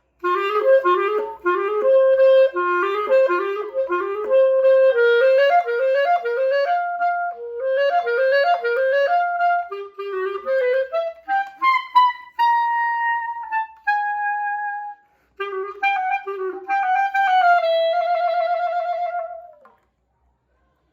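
Clarinet, its reed held by an elastic-cord ligature, playing a solo melody. It begins with quick runs of short notes, moves on to slower held notes with a brief pause, and ends on a long note with vibrato.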